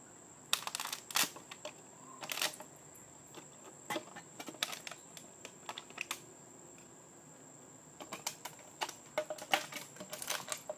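Light metal clinks and rattles of a lidded canteen cup being handled on a small wood-pellet camp stove, with the burning pellets being poked: irregular sharp clicks in small clusters, busiest about half a second in and again toward the end.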